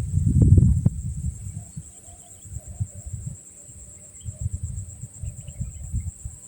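Insects chirring steadily at a high pitch, over low rumbling noise on the microphone that is loudest in the first second, with a few sharp clicks about half a second in.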